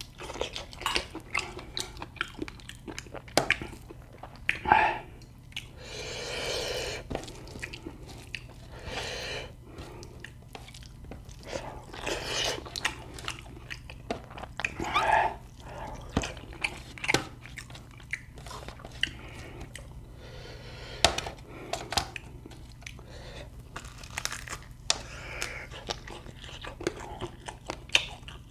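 A person chewing and crunching quail meat close to the microphone, with many crisp bites and crackles between stretches of wet chewing.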